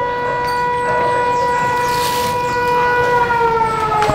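A siren sounding one steady, loud tone, then winding down and falling in pitch near the end. A sharp knock comes just before the end.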